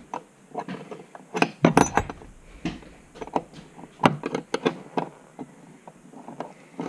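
Hand tool clicking and knocking against metal as the two 17 mm bolts holding a seat belt receiver are worked loose: irregular sharp clicks, busiest a couple of seconds in and again about four seconds in.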